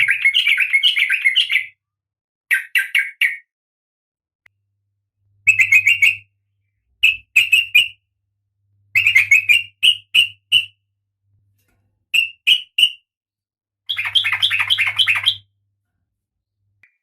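Female oriental magpie-robin (kacer) calling in short bursts of rapid, harsh chirps, about seven phrases separated by silent gaps.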